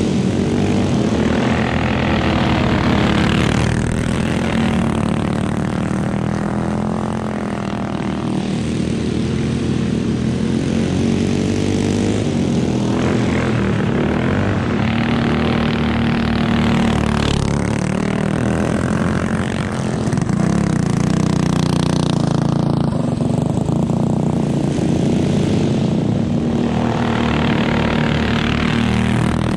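Several small go-kart engines racing together, a continuous drone whose pitch rises and falls as the karts accelerate and let off. It grows louder near the end as a kart comes close.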